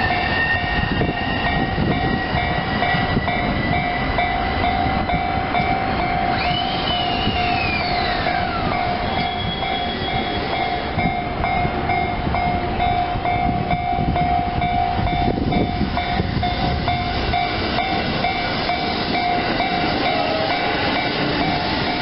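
JR commuter electric trains (E231 and E217 series) running past over the rails in a steady rumble, while the level crossing's warning bell rings on and on. About seven seconds in, a tone sweeps down in pitch over a couple of seconds.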